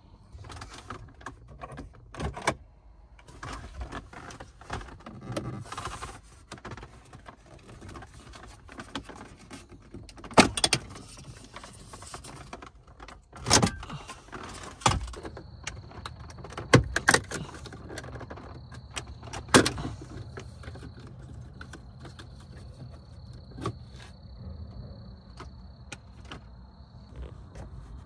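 Mercedes W166 ML350 dashboard trim panels being handled and worked loose by hand: rubbing and scraping of trim with several sharp clicks and knocks at irregular intervals.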